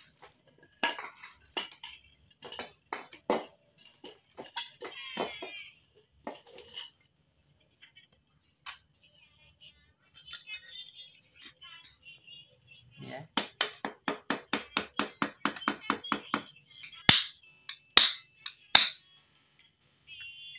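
Metal tools clinking and tapping, then a fast run of hammer strikes on metal, about six a second, followed by three harder, separate blows. This is the worn steering head bearing being knocked out of a Yamaha NMAX's steering stem.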